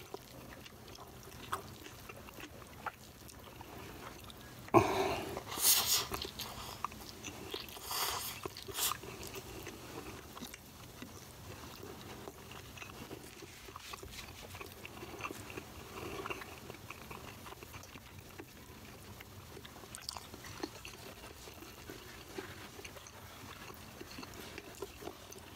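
Close-up chewing and biting of a person eating rice with urap sayur and semur jengkol by hand, mostly faint, with a cluster of louder bites and chews about five to nine seconds in.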